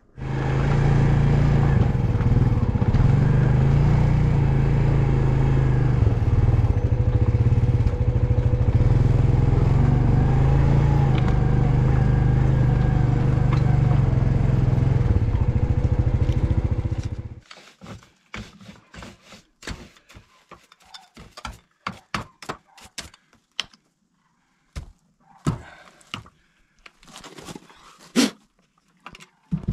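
ATV engine running steadily while riding along a trail, then stopping suddenly after about 17 seconds. Scattered clicks and knocks follow as a chainsaw is handled for refuelling and oiling.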